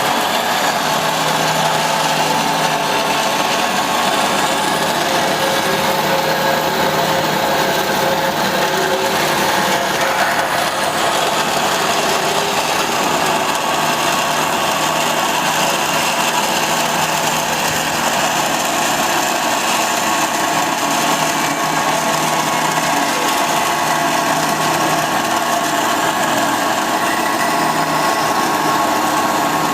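SH330 band saw machine running, a steady mechanical noise with a constant hum and a few steady tones that hold unchanged throughout.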